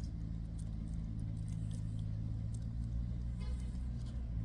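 Low, steady hum of an idling engine, with faint scattered clicks and a brief rasp about three and a half seconds in.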